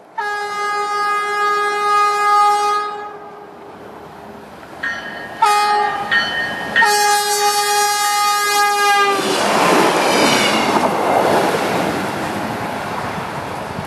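A RiverLINE Stadler GTW diesel light-rail train sounds its horn for the grade crossing: a long blast, a short one and another long one. From about nine seconds in, the train passes close by with a loud rush of wheels on rails and engine noise.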